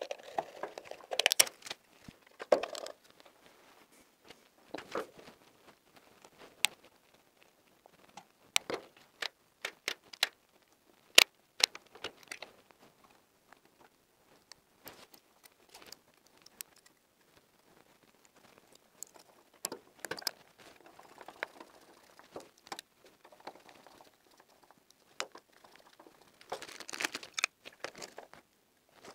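Hand work fitting a flush-mounted wall switch and socket: scattered sharp clicks and taps of plastic parts and a screwdriver, with short bits of rustling. The sharpest click comes about eleven seconds in.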